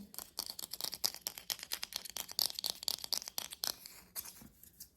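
Fingernails tapping quickly on a hollow plastic toy potato, a fast run of light clicks that thins out to a few near the end.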